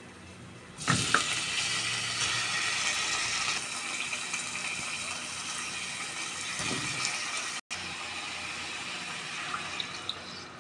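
Raw fish slices going into hot oil with garlic and ginger in a stainless steel pot and sizzling, with a few clatters as they go in about a second in. The sizzle softens a few seconds later and a steady hiss carries on.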